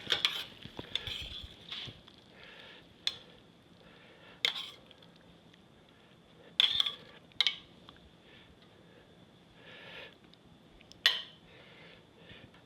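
Metal utensils clinking and knocking against cookware: a quick run of clinks at first, then single sharp knocks every second or few, the loudest about seven and eleven seconds in.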